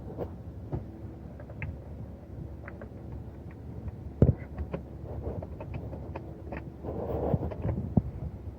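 Scattered light clicks and knocks of hand tools and parts being handled during work on the engine, with one sharper knock about four seconds in and a brief rustle near the end.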